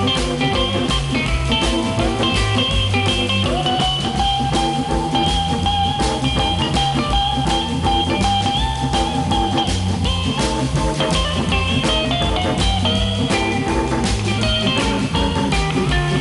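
Instrumental 1960s rhythm-and-blues band recording with electric guitar, bass and drum kit playing a steady beat. A long note is held through the middle.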